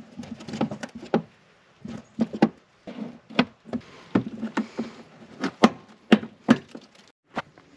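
Phillips screwdriver working screws and plastic press-in clips out of a plastic wheel-well liner: irregular clicks, taps and scrapes of metal on plastic.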